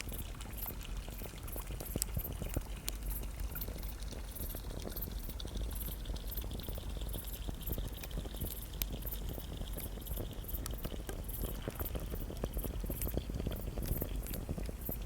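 Wood campfire crackling, with many small irregular pops and snaps over a steady low hiss.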